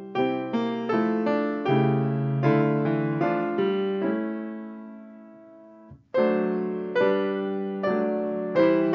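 Solo piano music: notes and chords struck in a steady, unhurried pulse. About halfway through a chord is held and dies away, and after a short break near the six-second mark the playing starts again.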